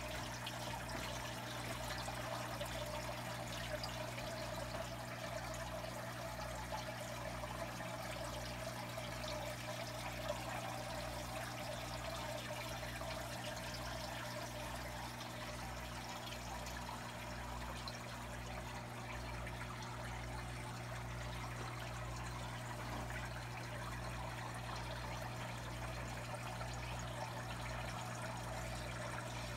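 Aquarium water circulation: a steady trickle and bubbling from the filter and a rising stream of air bubbles, over a steady low hum with a soft low pulse a little over once a second.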